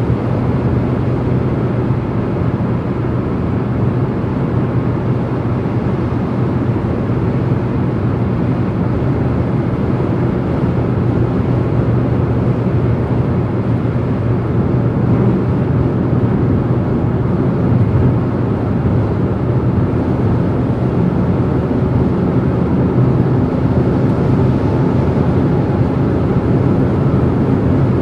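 Car driving at motorway speed: steady tyre and road noise with a low, even engine drone.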